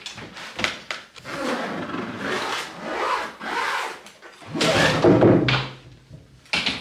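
Zipper of a hard-shell suitcase being drawn around the case in long rasping pulls, then a louder knock and scrape a little past the middle as the suitcase is tipped up and lifted off a wooden table.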